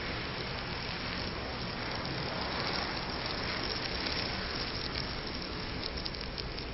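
A large mass of matchsticks burning in a big open flame: a steady noise of fire, with a quick run of crackles near the end.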